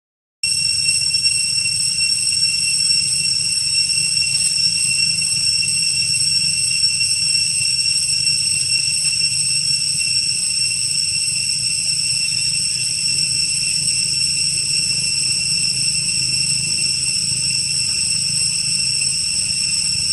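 A steady high-pitched drone of cicadas that holds one pitch with its overtones, over a low rumbling noise. It drops out briefly just after the start.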